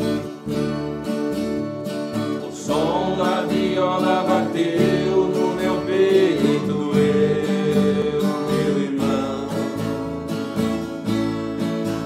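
Instrumental introduction of a Brazilian caipira song: acoustic guitars plucking with an electric bass underneath. A melodic lead line comes in a few seconds in.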